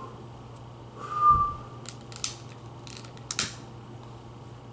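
A short whistled note from pursed lips about a second in, followed by several quick mouth clicks and short breathy puffs.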